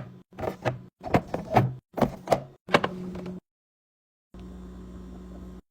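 Fridge restocking and handling sounds: a quick run of sharp clicks and knocks from containers and fridge doors or drawers being handled and set down, over a steady low hum. The sounds are cut into short clips, with a break of about a second near the middle.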